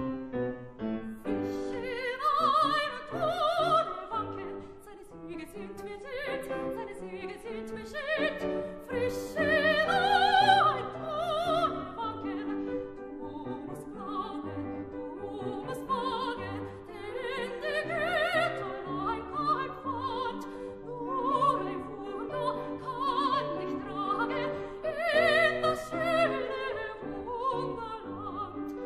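Soprano singing a German art song with wide vibrato, accompanied by a grand piano; the piano plays alone for a moment before the voice comes in about two seconds in.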